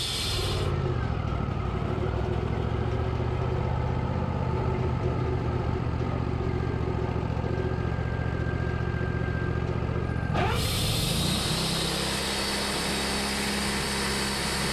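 Engine running steadily at a constant speed. The sound turns duller about a second in and brightens again at about ten seconds.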